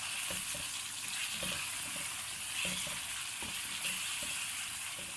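Chicken frying in its oil in a karahi, sizzling steadily as it is stirred, with light knocks of the spoon against the pan every second or so.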